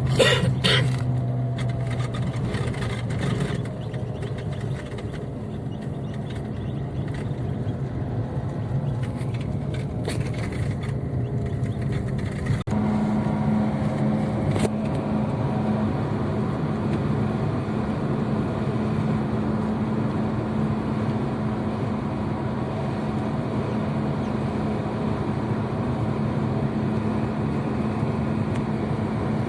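Car driving, heard from inside the cabin: steady engine hum and road noise. The engine's tone steps up in pitch about halfway through.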